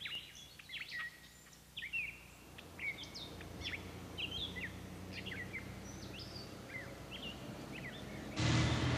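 Small birds chirping and twittering outdoors, many short calls throughout, over a faint steady low hum that comes in a couple of seconds in. Near the end a louder low rumble starts suddenly.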